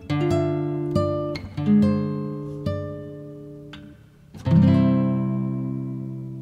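Background music on acoustic guitar: single plucked notes, then a fuller strummed chord about four and a half seconds in that rings on and slowly fades.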